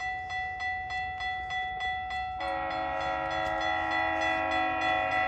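Level-crossing warning bell ringing in rapid, regular strokes, about three a second. About two and a half seconds in, the approaching GO Transit train's horn joins with one long, steady chord that is still sounding at the end.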